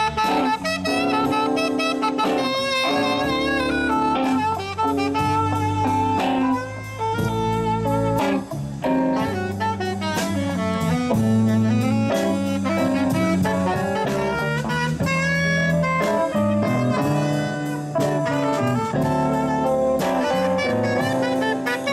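Live blues band playing a slow blues, with a saxophone taking the lead melody over bass, guitar and drum kit.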